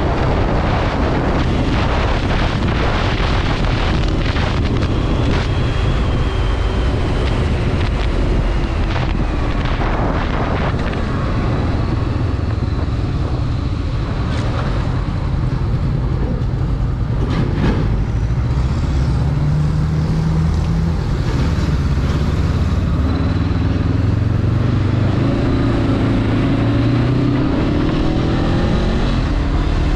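Sport motorcycle riding at road speed, with heavy wind noise on the microphone. After slowing down, the engine note comes through and rises as the bike accelerates again near the end.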